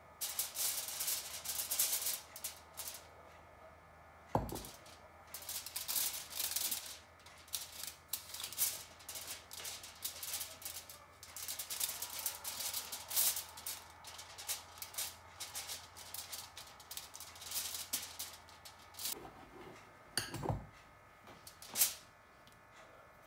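Spatula scraping whipped cloud-bread meringue out of a glass bowl and spreading it on a foil-lined baking tray: a run of soft, irregular scrapes and rustles, with a sharp knock about four seconds in and a heavier thump near the end.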